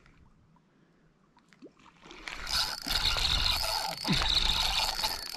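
Faint at first; about two seconds in, loud close handling noise begins as a fishing rod is gripped and its spinning reel is cranked, with a steady high whine running through it.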